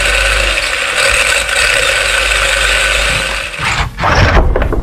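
Arrma Mojave Grom RC truck's electric motor and drivetrain running at speed with the wheels spinning freely, a steady whirring with gear noise, as the freshly replaced rear differential is tested. It cuts off a little over three and a half seconds in, and a clatter of knocks follows as the truck moves on the bench.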